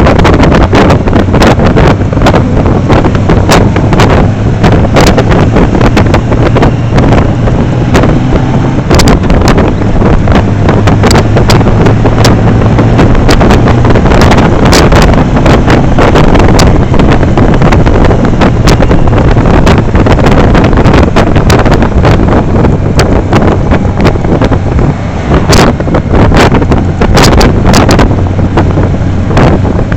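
Wind buffeting the microphone on a moving touring motorcycle, loud and gusty, over the steady drone of the engine and road noise.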